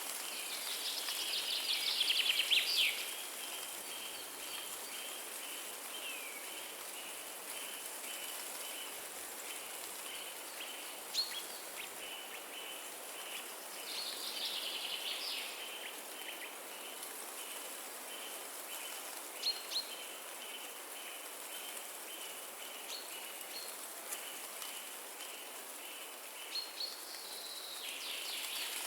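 Forest ambience: a steady hiss of wind through the trees, with birds singing short phrases about two seconds in, near the middle and near the end, and a few single chirps between. A faint high note repeats about twice a second throughout.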